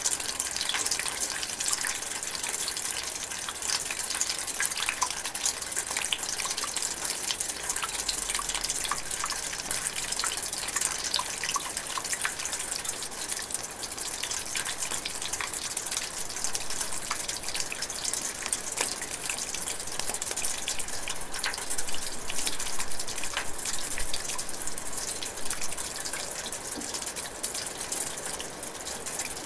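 Rain drizzling steadily: an even hiss of falling rain with a dense patter of individual drops ticking through it.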